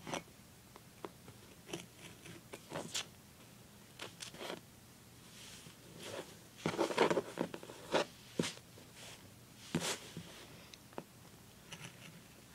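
Scissors cutting off excess duct tape, with the tape and paper rustling as they are handled: irregular short snips and crinkles, busiest about halfway through.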